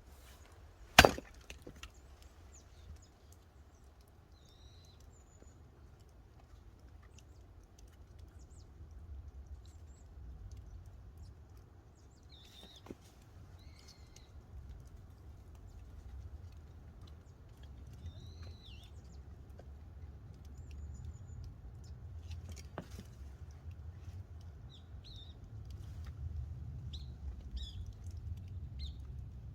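One loud, sharp axe blow splitting firewood about a second in, followed much later by two faint knocks. Small birds chirp on and off over a low rumble.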